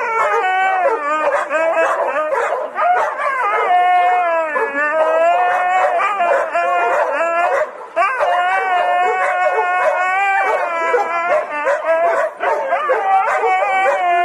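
Husky howling in long, wavering calls that bend up and down in pitch, breaking off briefly about eight seconds in and again near the end.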